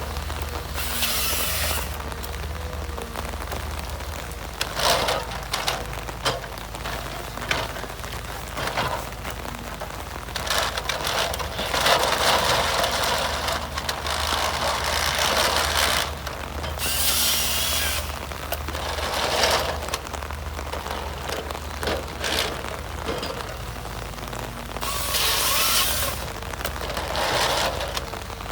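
Forestry harvester at work: a steady engine hum underneath, with repeated bursts of harsh noise, some lasting several seconds, as the head feeds and cuts the stems.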